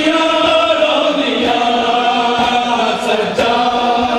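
Male voices chanting a Punjabi noha, a Shia mourning lament, in long held notes.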